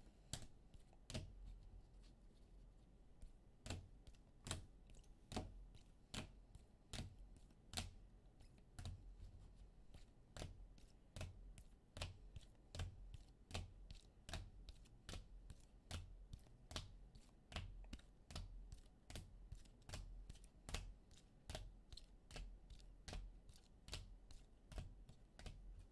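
Faint, irregular key clicks of a computer keyboard being typed on, about two to three a second.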